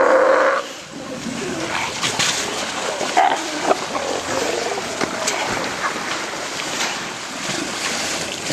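Sea lions barking and growling in the water, a loud call right at the start and shorter calls after, with water splashing around them.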